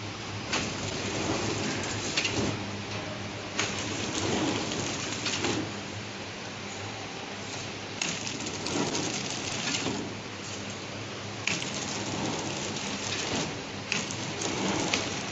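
Horizontal flow-wrap packaging machine running: a steady hiss and rattle over a low hum, with sharp clicks and louder spells every two to three seconds.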